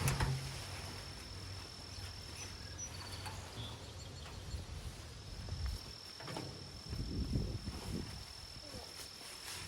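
An insect trilling on one steady high note, dropping out about a third of the way in and resuming about halfway. Below it are scattered low rustles and thumps, with a louder knock at the very start.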